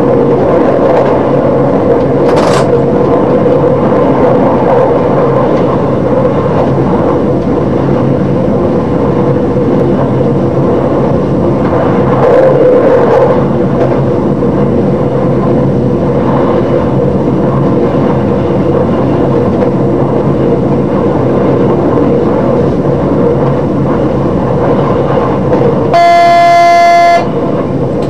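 Class 628 diesel multiple unit running steadily along the line, heard from the driver's cab. Near the end the train sounds one steady horn blast lasting a little over a second.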